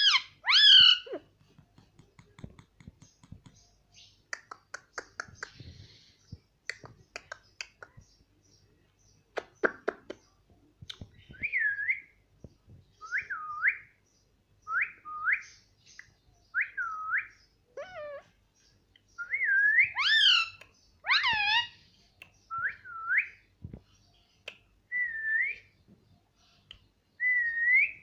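Indian ringneck parakeet calling: loud falling whistles at the start, then several seconds of scattered clicks, then a run of short whistled notes that dip and rise, about one every second and a half, with two louder, fuller calls partway through.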